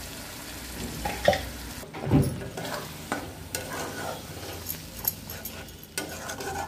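Flat metal spatula stirring and scraping masala paste as it sizzles in a metal kadai, with a few sharp knocks of the spatula against the pan. This is the masala being fried down (kashaa).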